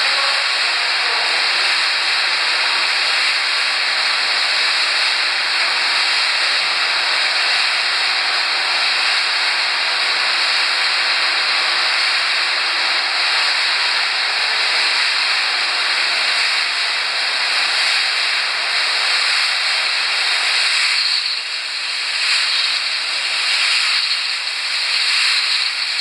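Pet food production line machinery running, heard as a loud, steady hiss. In the last few seconds the hiss turns uneven, dipping and surging.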